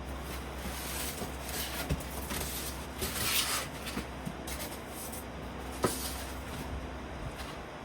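Handling noises: rustling with scattered clicks and knocks, one sharp knock about six seconds in, over a steady low hum.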